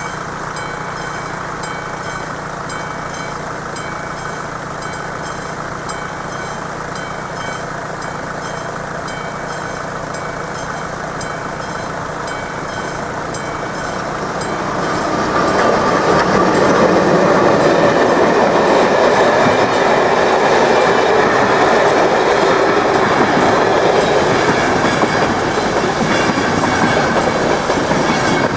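Level-crossing warning bell ringing over the steady hum of idling road vehicles. About fifteen seconds in, a passenger train reaches the crossing and passes through at speed, its wheels loud on the rails.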